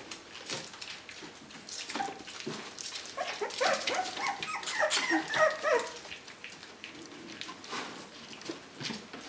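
Four-week-old puppies yapping and whimpering in a quick flurry of short high calls lasting about three seconds from a few seconds in, among light clicks and rustles of paws on newspaper.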